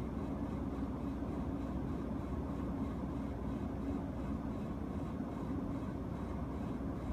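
Panasonic CS-GX226C room air conditioner indoor unit running, a steady rush of air with a low drone in it. This is the abnormal noise from the indoor unit, which came back even after the fan and motor were replaced under warranty.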